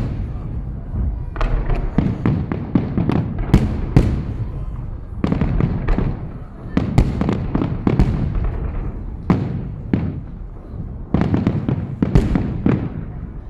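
Aerial fireworks shells bursting in rapid volleys: clusters of sharp bangs a few seconds apart, with a low rumble carrying between them.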